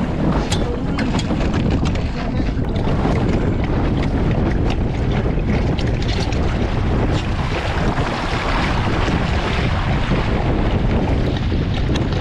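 Wind buffeting the boat-mounted camera's microphone while a small sailing dinghy moves through choppy water, with water rushing and splashing along the hull and sharp ticks scattered throughout.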